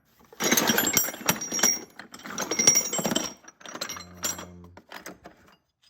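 Small metal milling cutters clinking and rattling against each other as they are handled in a bin: two dense stretches of clatter, then a few lighter clinks.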